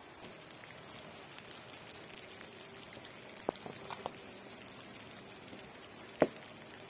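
Steady rain, with single drops ticking on a surface; a few sharper taps about halfway through and one loud tap near the end.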